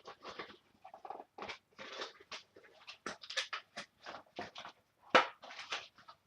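Cardboard and plastic packaging being handled and pulled open: irregular crinkling and rustling, with a sharper crackle about five seconds in.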